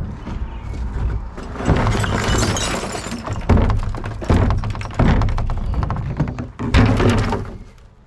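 Rubbish being handled in a plastic wheelie bin: a run of thunks and clatters from items knocking against the bin and each other, with some glass clinking among them.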